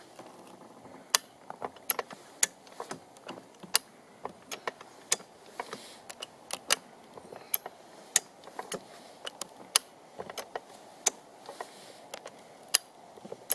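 Sharp metallic clicks and clacks of a high-lift farm jack ratcheting up and a bottle jack being pumped as they lift the chained end of a log, with the chain clinking. The clicks come unevenly, a few a second.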